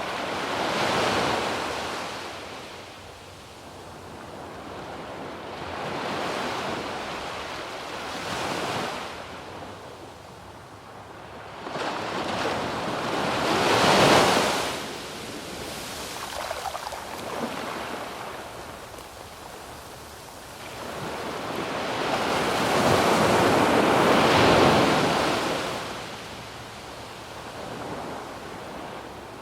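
Waves breaking on a sandy beach: surf rising and falling in repeated surges every few seconds, the strongest break about halfway through and a long swell later on. Light wind on the microphone.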